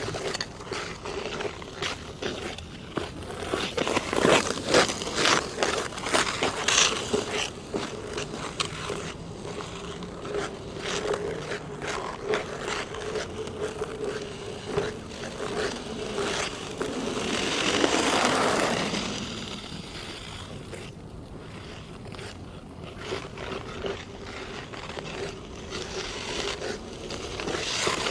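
Ice skate blades cutting and scraping on hard natural black ice, a run of short crisp strokes, with one longer swelling scrape a little past the middle. A faint steady low tone runs underneath.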